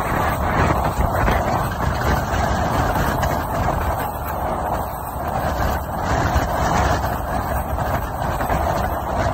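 Small open boat's motor running steadily while under way, mixed with rushing water and wind noise.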